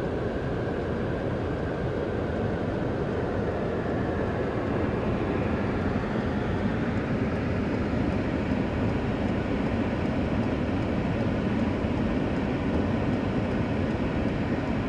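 Steady rushing noise heard from inside a car: muddy floodwater streaming across the road in heavy rain, under the hum of the car itself.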